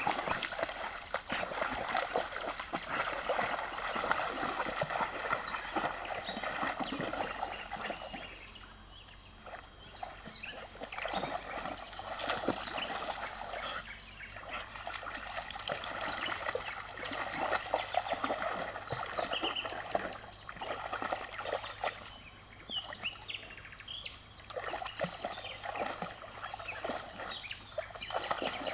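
A Rottweiler and a pit bull splashing as they wade and play through shallow stream water. The splashing comes in bouts, with a few short lulls.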